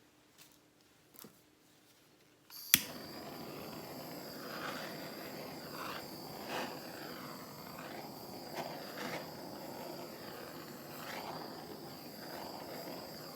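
A handheld torch clicks alight after a couple of faint clicks, then burns with a steady hiss.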